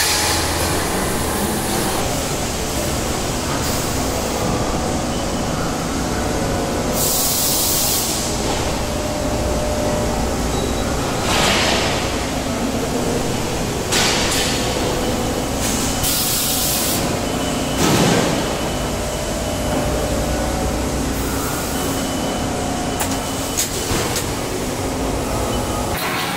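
Laser tube cutting machine running: a steady mechanical rumble broken by several short hissing bursts a few seconds apart.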